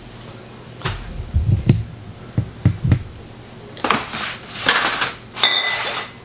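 Handling noises on a kitchen counter: a few sharp knocks and low bumps, then three short scraping hisses in the second half, the last with a faint squeal, as a glass jar with a fermentation lid is moved about on a steel worktop.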